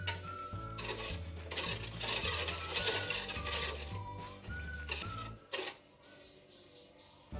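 A wire whisk stirring hot sugar syrup in an aluminium pot, its metal wires swishing through the liquid and clinking against the pot. Background music with a whistled melody and bass line plays over it, dropping out about three-quarters of the way through.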